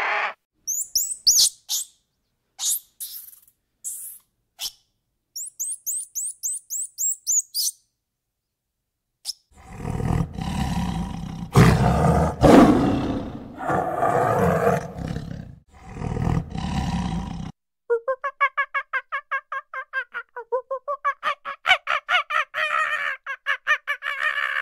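Short runs of high, quick chirping calls, then a tiger roaring for several seconds, the loudest part, then a monkey's rapid pulsed calls, about five or six a second.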